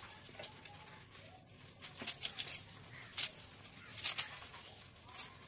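Shallots being cut against the edge of an upright iron floor blade (bonti): a few crisp, sharp crunches, the loudest about three and four seconds in, with faint animal calls in the background.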